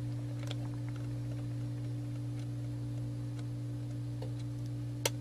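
Quartz movement of a Westclox analog alarm clock ticking faintly about once a second over a steady hum. About five seconds in comes one sharper click from the alarm mechanism as the alarm hand is turned, with no alarm sounding after it.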